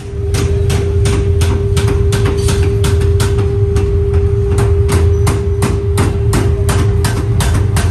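Workshop machinery striking metal in an even rhythm, about three blows a second, over a loud, steady machine hum with a constant drone.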